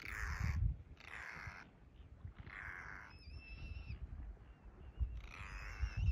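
Four harsh, raspy animal calls, each about half a second long, spaced irregularly over a low rumble.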